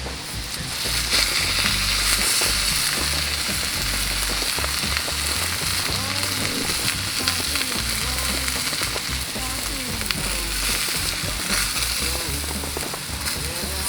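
Steak sizzling as it cooks over a campfire, a steady hiss that sets in about a second in.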